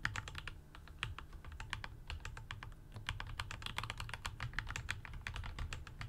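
Typing on a Dygma Defy split mechanical keyboard fitted with thick-walled dye-sublimated PBT keycaps: a quick, continuous run of keystroke clacks, several a second.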